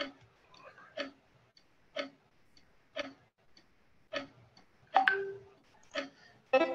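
Skribbl.io's round countdown timer ticking about once a second as the last seconds of a drawing turn run out, with a louder, fuller sound about five seconds in and again near the end.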